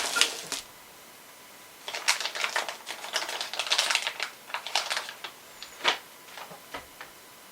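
Light, rapid clicking and rattling of small hard plastic and metal parts being handled at a server CPU socket, the socket's plastic cover and the CPU carrier frame. A brief flurry at the start, then a longer run of clicks from about two to five seconds in and one more click near six seconds.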